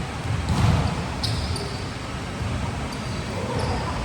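Volleyball play on an indoor court: the ball thumps, loudest about half a second in, and sneakers give short squeaks on the floor a little after one second and again near the end.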